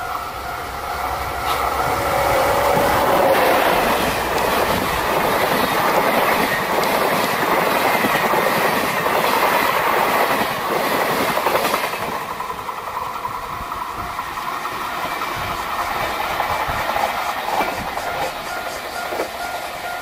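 A Japanese level-crossing bell rings steadily while a train runs past close by. The train's noise swells about two seconds in and drowns the bell, then drops away about twelve seconds in, leaving the bell ringing on its own.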